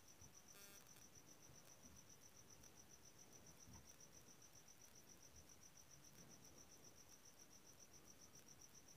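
Near silence, with a faint chirping insect: a high trill pulsing evenly about six times a second. There is a brief faint buzz just under a second in.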